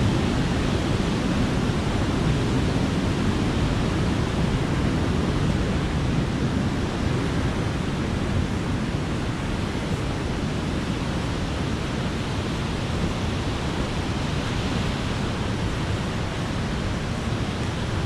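Steady rushing of the flood-swollen Sixteen Mile Creek, high after heavy overnight rain, growing slightly fainter over the stretch.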